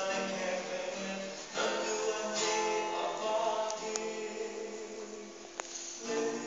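Music with a strummed acoustic guitar.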